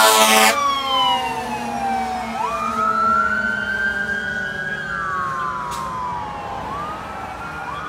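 Fire engine's siren wailing, its pitch sliding slowly down and back up in long cycles and fading as the truck drives away. A loud horn blast cuts off about half a second in.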